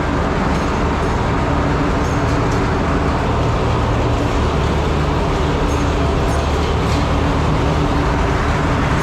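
Antique tractor engine running steadily, a continuous low rumble with no change in speed.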